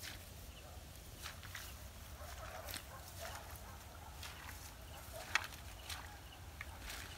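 Quiet outdoor ambience: a steady low rumble with scattered soft rustles and clicks, the sharpest about five seconds in.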